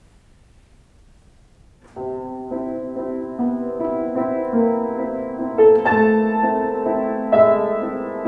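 Piano playing sustained chords, which come in about two seconds in after a short quiet pause and build, with two stronger struck chords, one past the middle and one near the end.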